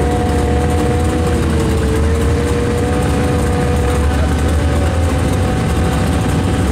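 Drag-racing sport bike's engine held at steady high revs on the starting line, a loud, steady pitched drone over a low rumble, its pitch dipping slightly about a second and a half in and then holding.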